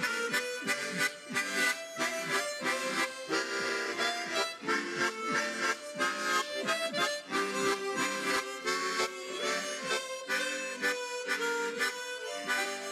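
Harmonica ensemble, with large chord harmonicas among the instruments, playing a tune over a brisk accompaniment of short repeated chords.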